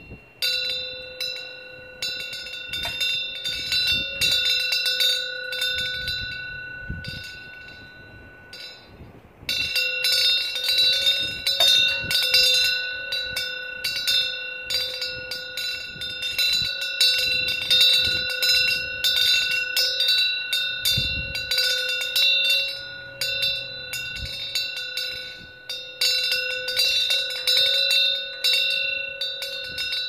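Korean wind bell (pungyeong) swung by strong gusts, its clapper striking over and over so the metal rings in a continuous, layered tone. The strikes come sparser at first, then much busier and louder from about nine seconds in as the wind picks up, with a few low wind rumbles underneath.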